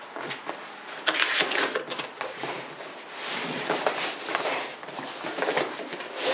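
Cardboard drill box being opened and handled by hand: irregular rustling and scraping of cardboard and packaging with small knocks, louder for a stretch about a second in and again around the middle.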